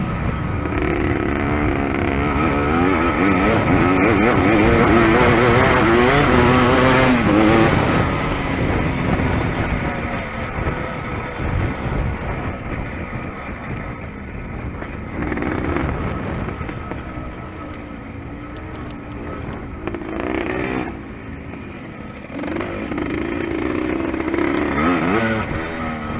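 Dirt bike engine under race throttle, its pitch repeatedly rising and falling as the rider opens and rolls off the throttle and shifts. It is loudest in the first several seconds, then eases off with shorter surges of throttle later on, heard from a helmet-mounted camera.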